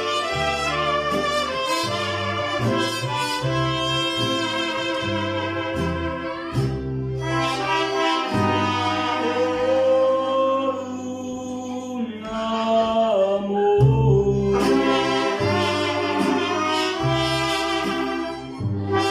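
Mariachi band playing live: trumpets carry the melody over a guitarrón plucking a rhythmic bass line and strummed guitars.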